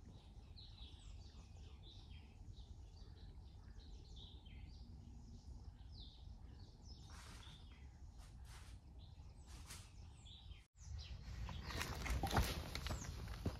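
Small birds chirping in short, scattered calls over a steady low background rumble. After a sudden cut about eleven seconds in, louder crunching of footsteps through dry leaves and grass.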